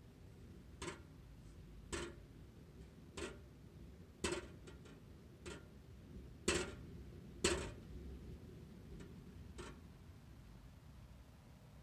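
Range hood's internal exhaust flap (backdraft damper) clapping open and shut as wind outside pushes on it. There are about eight sharp claps at uneven intervals of roughly a second, the loudest two past the middle.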